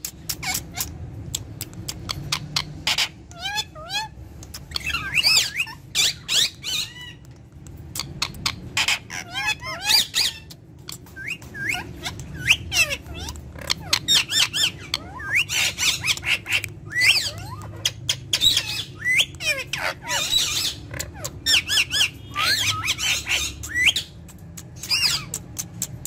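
Indian ringneck parakeet chattering: quick squawks, chirps and whistled calls that rise and fall in pitch, coming in runs on and off, over a steady low hum.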